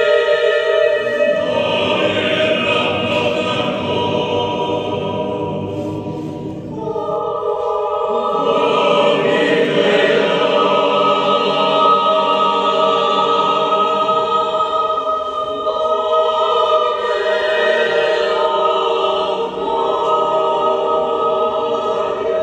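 Mixed choir singing a cappella in dense, sustained chords that swell, thin out briefly about six seconds in, then build again.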